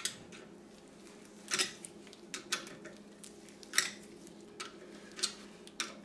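Light metal clicks and clinks, eight or nine spaced irregularly, as the front wheel's spindle nut on a 1974 VW Super Beetle is unscrewed by hand at the hub, over a steady low hum.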